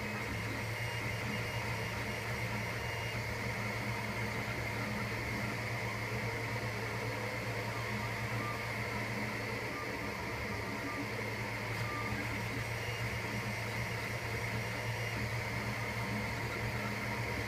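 Monoprice 3D printer running mid-print: a steady hum from its fans and motors, with a few short high whines as the print head moves.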